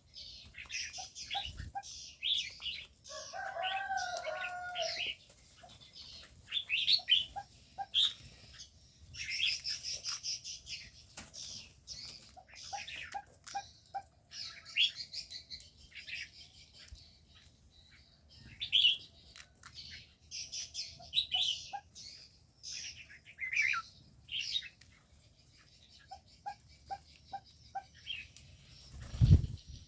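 Many small aviary birds chirping and twittering in quick, overlapping high calls, with wing flutters among them and one lower warbling call a few seconds in. A single low thump comes near the end.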